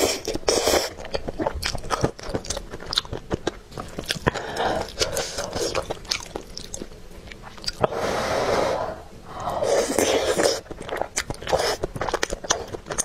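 Close-miked eating of saucy rice with meatballs and enoki mushrooms: wet chewing and sharp mouth clicks throughout, with two long slurps about eight and ten seconds in.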